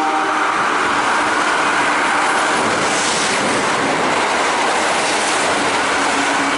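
Kintetsu 30000 series Vista EX limited express train passing through the station at speed without stopping: a loud, steady rush of wheel and running noise.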